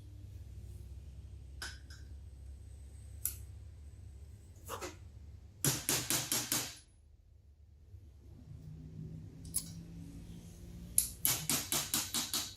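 Two bursts of rapid knocking, about six strikes a second, one near the middle and a longer one near the end, with a few single clicks before them over a steady low hum.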